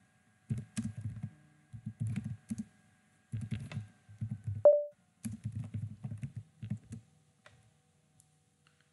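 Typing on a computer keyboard in quick runs of keystrokes with short pauses between them, stopping about seven seconds in. Just before the middle, a single short tone sounds, louder than the keystrokes.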